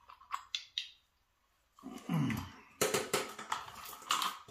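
Small hard clicks and clinks of a motorcycle indicator unit being handled and its bulbs removed: a few sharp clicks in the first second, then a busier clatter in the second half. About two seconds in there is a brief low sound sliding down in pitch.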